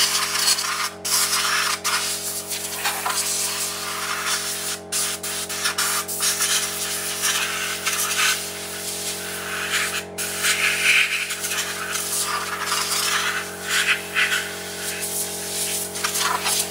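Compressed-air blow gun hissing in uneven bursts as air is blown over and into the keywork of a Yamaha tenor saxophone, with a few brief breaks, over a steady low hum.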